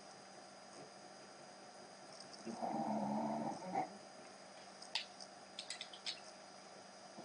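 A low, rough vocal groan lasting a little over a second, starting about two and a half seconds in. It is followed by a few light clicks of colored pencils knocking together.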